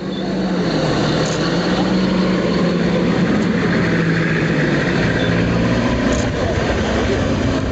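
Steady engine-like hum over a dense, even rumbling noise, holding at the same level throughout.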